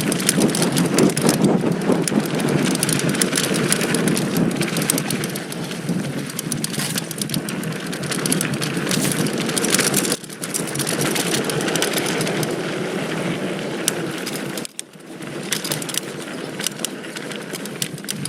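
2019 Giant Stance 2 mountain bike descending a loose dirt trail: tyres grinding over dirt and rock, with a steady stream of clicks and knocks from the bike. The noise cuts out suddenly a little before the end, then carries on quieter.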